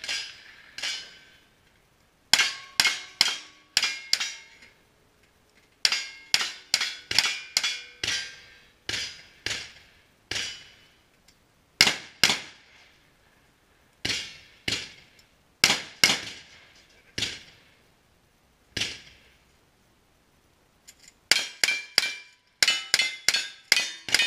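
Gunshots from a cowboy action shooting stage, fired in strings of quick shots with short pauses between, at steel targets that ring briefly after some hits. The shots come fastest in the last few seconds, about three or four a second.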